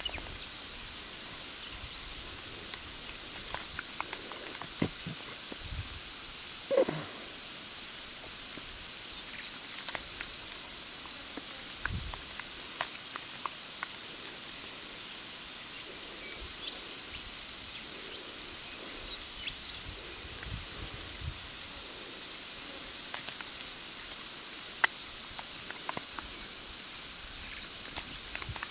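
Steady hiss of water spraying from a leaking bore pipe, broken by scattered clicks and splashes as a heeler puppy snaps at the spray. About seven seconds in, a short yelp falls in pitch.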